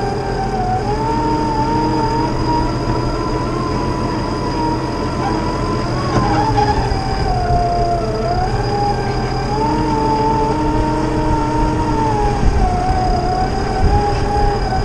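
Nissan Pathfinder R51's engine revving hard and held high while its wheels spin in soft sand, the pitch sagging and climbing back several times. The vehicle is stuck and not moving forward.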